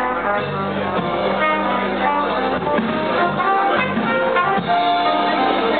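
A live jazz-soul band playing, with a trumpet carrying the melody in held notes over electric bass, drums and keyboards.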